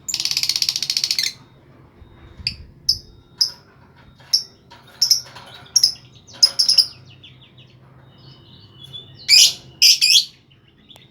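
Lovebird singing: a rapid rattling trill for about a second at the start, then a string of short, sharp chirps, and two louder, harsher calls near the end.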